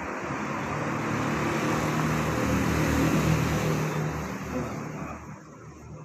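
A motor vehicle passing by, its engine and road noise growing louder to a peak about halfway, then fading away near the end.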